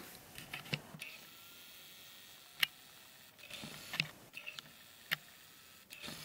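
Handling noise from a plastic twisty puzzle, the mf8 Radiolarian 2, held and moved in the hand: a few sparse light clicks and taps, the sharpest about two and a half seconds in, over faint room hiss.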